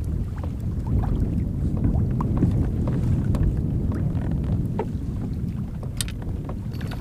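Wind buffeting the microphone in a steady low rumble over a small craft on open water, with a few scattered light clicks.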